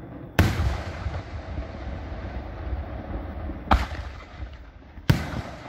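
Aerial fireworks shells going off: three sharp booms, one shortly after the start, one about three and a half seconds in and one a second and a half later. Each is followed by a rolling, echoing rumble, over a low rumble of the display that never stops.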